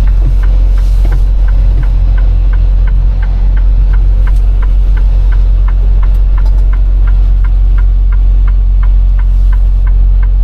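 Semi truck's engine running with a steady low drone in the cab, under the turn signal clicking evenly about three times a second.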